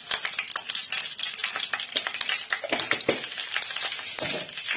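Mustard seeds spluttering in hot coconut oil with dried red chillies: a steady sizzle full of rapid, sharp pops.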